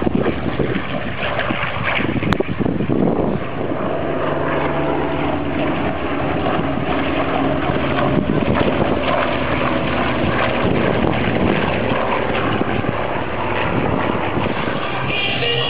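Piston-engine propeller warbirds flying past in formation, a steady engine drone whose tone shifts over the pass, with a sharp click about two seconds in.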